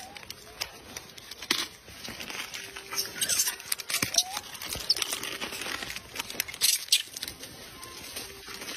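Plastic food wrapper crinkling and rustling in irregular bursts as it is handled and pulled at, with scattered sharp clicks.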